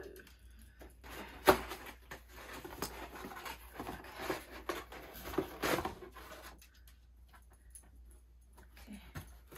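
A cardboard shipping box being opened and handled: flaps rustling and scraping, with a sharp tap about a second and a half in. The handling goes quiet after about six and a half seconds.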